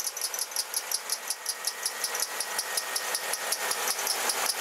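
A running car engine's serpentine drive belt squealing in a rapid, even series of high-pitched squeaks. This is the sign of the belt slipping on its pulleys, from a belt that is old and glazed or a tensioner that is not keeping it tight enough.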